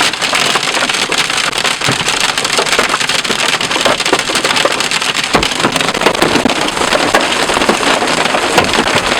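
Wind-driven hail pelting the vehicle, a dense, steady clatter of countless impacts, with a couple of heavier strikes standing out about two and five seconds in.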